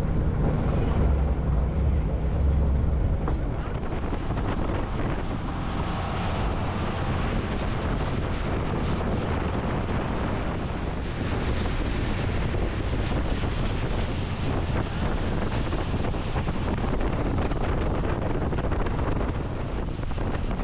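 A tour boat's engine running under way, with heavy wind buffeting the microphone and the rush of water. A low, steady engine hum stands out for the first few seconds, then the wind and water noise take over.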